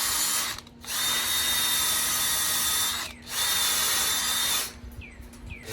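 An electric power tool's motor running in three bursts of a second or two each, with a steady high whine. It winds down between the bursts.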